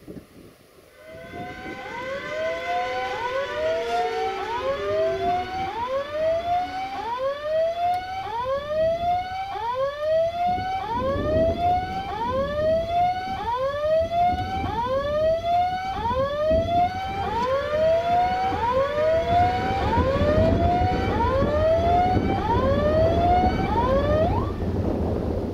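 Level crossing's electronic warning sounder going off: a rising whoop repeated about once a second, with a steadier held tone under it at the start and again near the end. From about halfway a low rumble grows beneath it.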